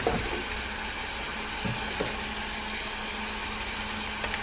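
Steady hiss with a low hum underneath from a stovetop where a pan of green beans and onions is cooking, with a few light knocks as seasoning containers are handled: one at the start, two around the middle and a small one near the end.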